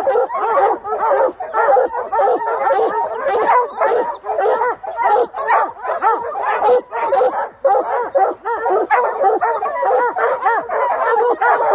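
A pack of hunting hounds barking and baying without a break, many rapid overlapping barks and yips: hounds barking treed at a bear.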